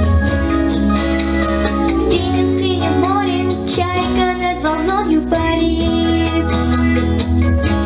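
A young girl singing a song into a handheld microphone over a recorded backing track with a steady drum beat and bass.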